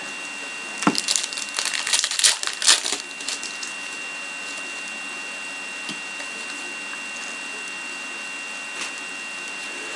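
Crinkly rustling of trading-card pack wrappers and cards being handled, for about two seconds starting a second in, then a few faint ticks. A faint steady high whine runs underneath.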